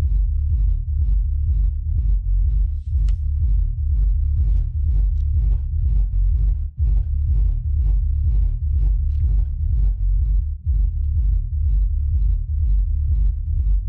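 Sealed DIY subwoofer playing loud deep bass that throbs two to three times a second, with a hiss on each pulse. The hiss is air rushing out around the on/off and phase buttons of its Dayton Audio plate amplifier: the amplifier panel is not airtight against the box's air pressure.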